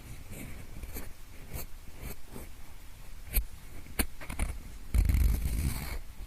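Pencil scratching and rubbing close to the microphone in ear-cleaning style, in both ears at once: short scrapes with a few sharp taps, and a louder, denser stretch of rubbing about five seconds in.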